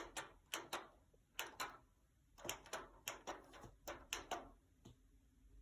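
Plus and minus buttons on an electric radiator's control panel pressed repeatedly to set the temperature: a series of short, sharp clicks, several a second, in runs with a brief pause about two seconds in.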